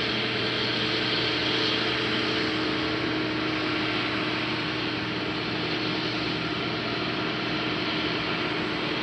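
IH 2577 rotary combine running steadily while cutting wheat: an even drone of engine and machinery with a few steady held tones.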